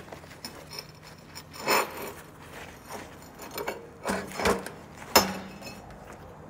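Handling noises around a steel weld test plate: rubbing and scraping, with a sharp knock about five seconds in, over a steady low workshop hum.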